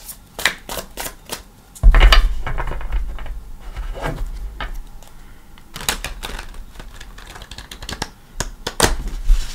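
A deck of tarot cards shuffled by hand: a run of sharp card clicks and taps, with a heavy thump against the table about two seconds in.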